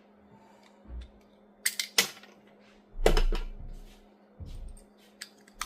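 Sharp plastic clicks and handling knocks from a car key fob being worked by hand during a battery change: a quick run of clicks, then a louder knock with a dull thud, then a few softer knocks and clicks, over a steady low hum.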